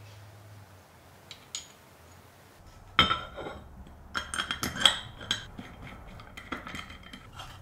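Irregular metallic clinks and taps of aluminium extrusion and jig parts being handled and a hex key working a screw, beginning with a sharp knock about three seconds in. Before that only a faint low steady hum.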